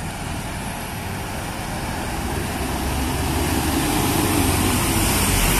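Heavy goods lorry's diesel engine running, growing steadily louder as the truck approaches and passes close by, with a deep low rumble building near the end.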